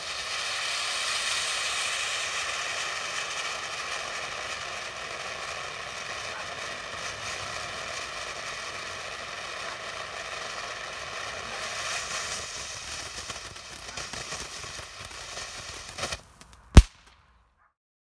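A Firehawk '4th of July Conic' fountain firework spraying sparks with a steady hiss, strongest at first and slowly easing until it dies out about sixteen seconds in. Near the end comes one sharp, loud bang.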